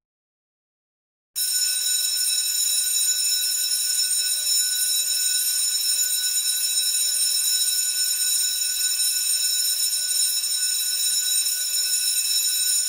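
Electric school bell ringing loudly and steadily without a break, starting about a second and a half in.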